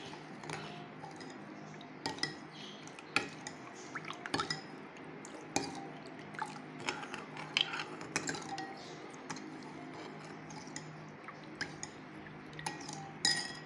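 Long steel spoon stirring rose milk in a glass bowl, clinking against the glass at irregular moments, with the liquid swishing. The sugar is being stirred in to dissolve.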